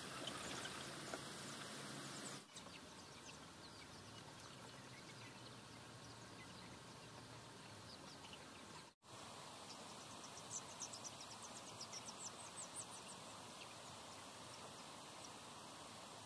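Faint outdoor background with the high peeps and chirps of a flock of young chickens, coming in a quick run about ten to thirteen seconds in. The sound drops out briefly twice, once at about two and a half seconds and once at about nine seconds.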